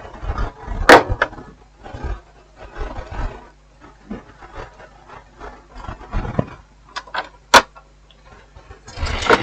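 Tools and parts being handled on a workbench: irregular scraping and rubbing with low thumps, and two sharp clicks, one about a second in and another near the end.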